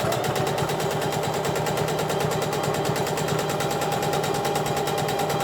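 Electric sewing machine running steadily, stitching elastic into a waistband: a fast, even clatter of the needle over a steady motor hum.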